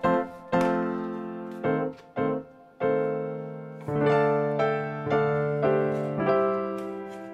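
Background keyboard music: a gentle piano melody of single struck notes that ring and fade, with fuller chords in the second half.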